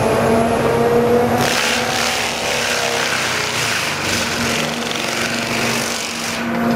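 Excavator engine running at a steady pitch, with a harsh hissing, rushing noise laid over it from about a second and a half in until shortly before the end.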